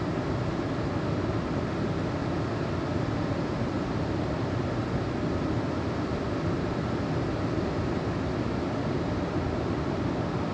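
Steady rush of flowing creek water, an even noise with no breaks or separate events.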